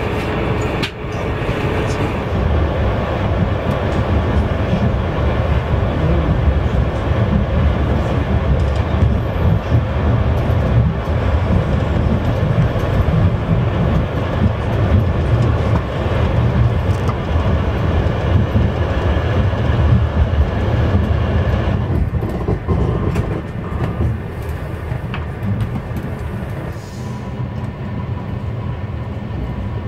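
Renfe Alvia train rumbling as heard from inside a passenger coach, rolling slowly out of a station and picking up speed, with scattered knocks of the wheels over rail joints.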